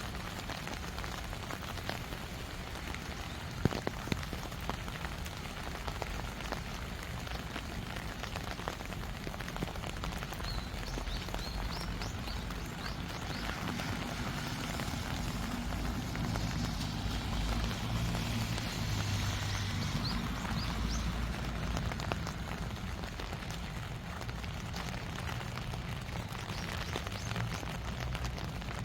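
Steady rain falling, with many small drops ticking close by. A few short, faint high chirps come about halfway through, and a low rumble swells for several seconds in the middle.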